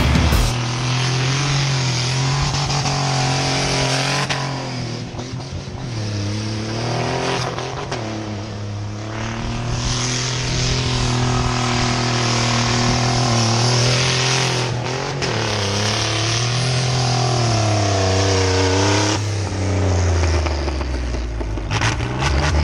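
Chevrolet 4.3-litre V6 truck engine, fitted with a homemade turbo, running hard as the truck is driven. Its revs rise and fall several times and settle lower near the end.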